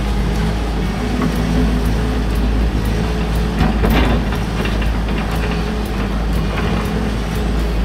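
Case 145 excavator's diesel engine running steadily under hydraulic load, heard from inside the cab while the bucket works soil, with a knock about four seconds in.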